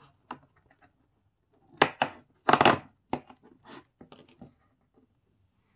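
Cardboard door of a LEGO advent calendar being pushed and torn open, with its contents handled: a run of sharp crackles and small clicks, the loudest a little under two seconds in and around two and a half seconds in.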